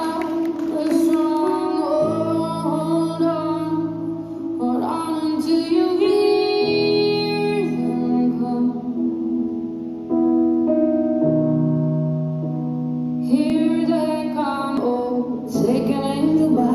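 Performance music over the show's sound system: a female vocal singing long held notes over piano or keyboard.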